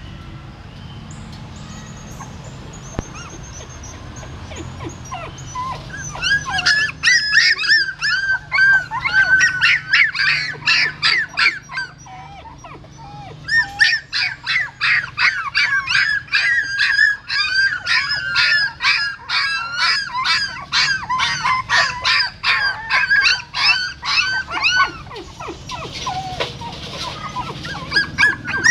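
Newborn puppies crying in rapid, high-pitched squeals, several a second. The squeals start about six seconds in, pause briefly a little before halfway, then go on again.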